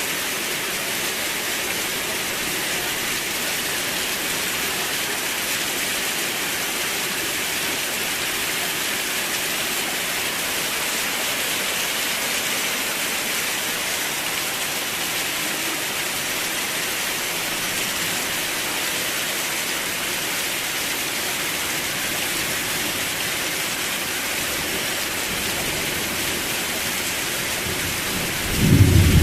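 Steady, even rain falling. Near the end a sudden loud, low rumble of thunder breaks in over it.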